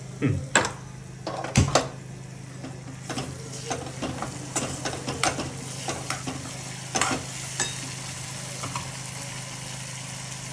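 A steel spoon stirring and scraping in a steel kadai of onion-tomato masala, with repeated sharp clinks against the pan over a faint sizzle from the still-hot oil.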